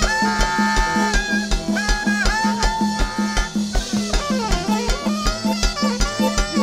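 Cumbia band playing an instrumental passage: a steady bass-drum beat about three times a second with shakers and other percussion under long held melody notes.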